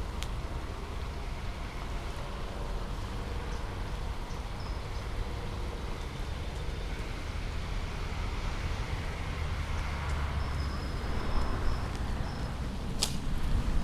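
Rain-swollen waterfall rushing steadily after heavy rain, a continuous rush of falling water with a deep rumble beneath it.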